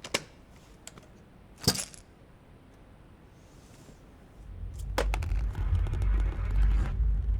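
Two sharp clicks, one right at the start and one about a second and a half later. Then, from about four and a half seconds in, a low rumbling drone swells up and holds.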